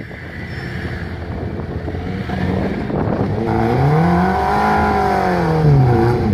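Off-road 4x4's engine running under load, revving up in one long rise and then dropping back as the vehicle climbs a muddy mound.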